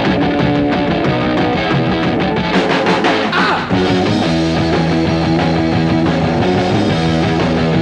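Fast punk rock from a full band, with drums and distorted electric guitar. A little under four seconds in there is a brief break, then the band drops into a steady driving riff.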